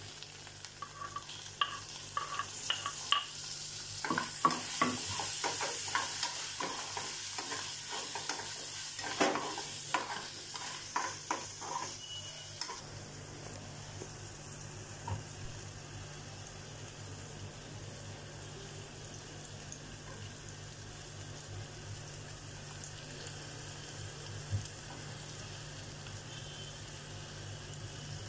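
Sliced onions sizzling in hot oil in a frying pan, a steady hiss. For the first twelve seconds or so a spoon scrapes and knocks against the pan in quick strokes as they are stirred; after that the sizzle goes on with only an occasional knock.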